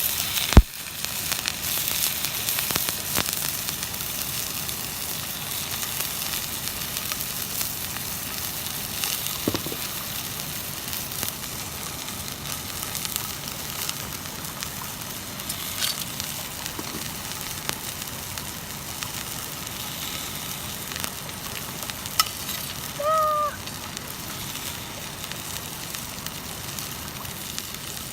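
Steak sizzling steadily in a cast-iron skillet over a campfire, with the fire crackling now and then. There is one sharp click just after the start and a brief high chirp about 23 seconds in.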